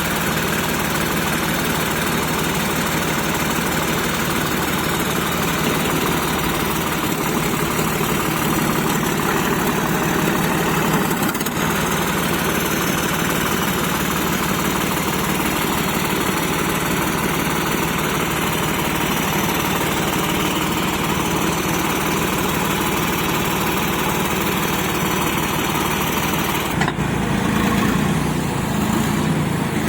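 Massey Ferguson 9500 tractor's diesel engine running steadily under a backhoe loader, with a sudden shift in its sound about 27 seconds in.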